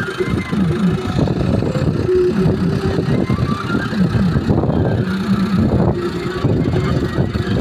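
Massey Ferguson 385 tractor's four-cylinder diesel engine running under load as its front dozer blade pushes soil, the engine pitch rising and falling with the throttle.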